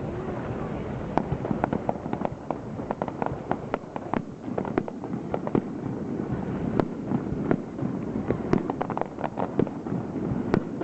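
Aerial fireworks display: many shells bursting in quick, irregular succession, dozens of sharp cracks and bangs over a steady low rumble.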